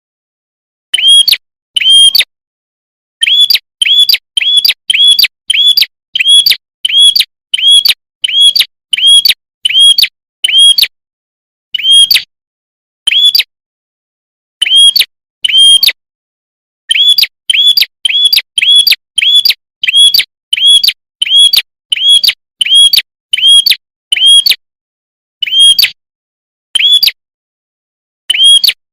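Recorded calls of a prenjak kepala merah (red-headed prenjak, a small prinia/tailorbird-type songbird) used as a bird-trapping lure: loud, clear, sharp chirps repeated about twice a second in long runs, with a few shorter pauses along the way.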